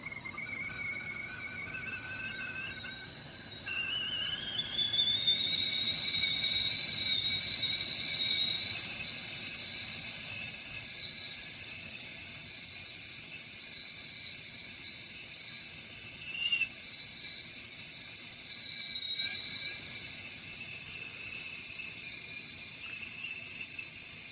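GGC 3.1-quart stainless steel stovetop kettle whistling as the water comes to the boil. The whistle starts faint and low, rises in pitch over the first few seconds, then holds a steady high tone that grows louder.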